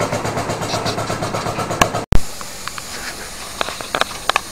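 Small live-steam model engine running with fast, even exhaust beats, about seven a second. The beats cut off suddenly about two seconds in, giving way to a steady hiss of escaping steam with a few light ticks.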